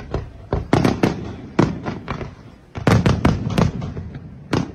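Aerial firework shells bursting in rapid succession: well over a dozen sharp bangs, each trailing off briefly, with dense clusters about a second in and again around three seconds in.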